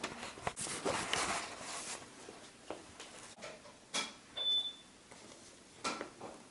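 Wooden kendama clacking a few times, sharp separate clicks about four and six seconds in, with a stretch of rustling handling noise early on.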